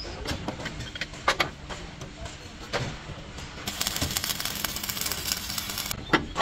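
A few sharp metal knocks on a steel truck chassis frame, then about halfway through an electric arc welder crackling and hissing for a couple of seconds as a weld is laid.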